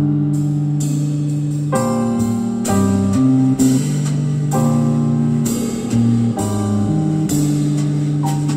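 Guitar-led instrumental music played back through a Super SP 65C speaker, a wooden cabinet with an orange woofer and a tweeter, as a listening test of the speaker. Held chords change about every second.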